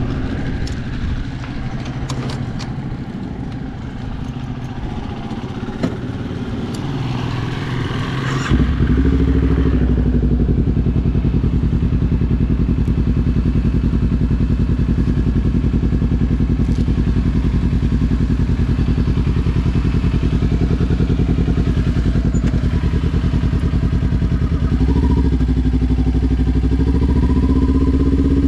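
Kawasaki Ninja 400's parallel-twin engine starting about eight seconds in, then idling steadily, a little louder near the end. Before it starts there are light clicks and handling noises.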